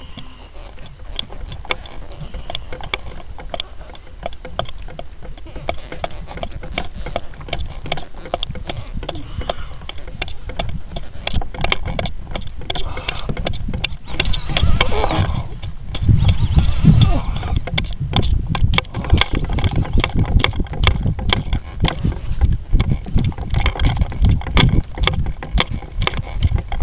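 Dense clicking and knocking of a fishing reel and rod being worked from a kayak while a fish is played on a bent rod, over a low rumble of water and handling noise. It grows louder about halfway through.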